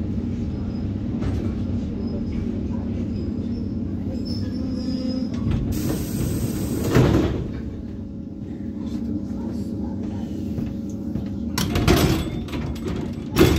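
Steady low hum inside an ED9M electric train car. About six seconds in comes a loud hiss of air lasting about a second, and there are two sharp knocks near the end.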